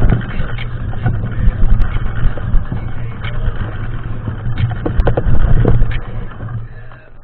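Mountain bike ride noise on a dirt trail: a steady rumble of wind and tyres on the bike-mounted camera's microphone, with scattered clicks and knocks from the bike over the rough ground. It dies down near the end.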